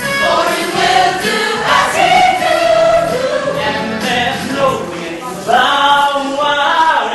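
A stage ensemble singing together in chorus, part of a live musical-theatre song.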